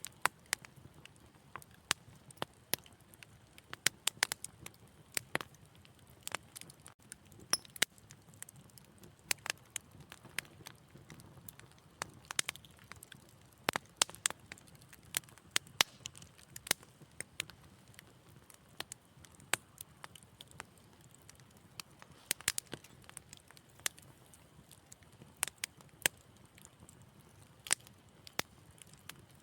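Wood fire crackling steadily, with frequent irregular sharp pops and snaps over a soft low rumble of burning.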